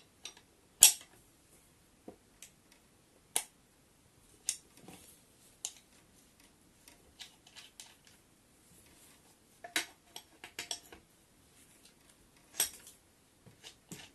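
Irregular sharp metallic clinks of a spanner working the axle nut of an electric scooter's front hub motor, the loudest about a second in, with a few more strong ones spread through.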